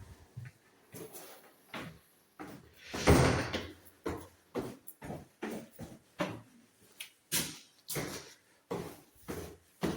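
A few light knocks, then a door shutting about three seconds in, followed by steady footsteps at about two steps a second.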